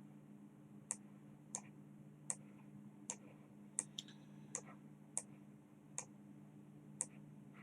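Faint computer mouse clicks, about nine of them spaced roughly three-quarters of a second apart, over a low steady hum.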